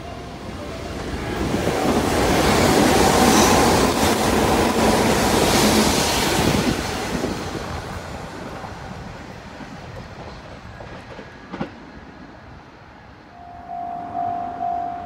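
An electric train passing at speed: a loud rush and rumble from the wheels that swells and then slowly fades over several seconds. About a second and a half before the end, a railway level-crossing bell starts ringing, one repeating tone about twice a second.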